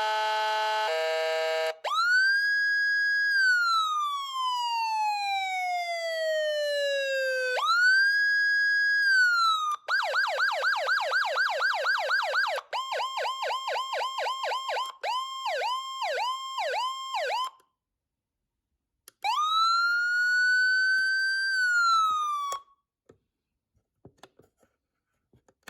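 Whelen 295SLSA1 electronic siren running through several of its tones. It opens with a stepping multi-note alarm. Then comes a wail that rises, holds and slowly falls, followed by fast yelp sweeps, several quick pulsing tones, a short pause, and a final rising wail that cuts off, leaving a few faint clicks near the end.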